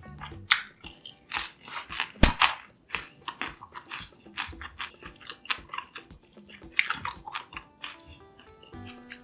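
Close-up crunching and chewing of crisp battered Korean fried vegetables (twigim). One sharp, loud crunch comes about two seconds in, another cluster of crunches about seven seconds in, and it gets quieter near the end.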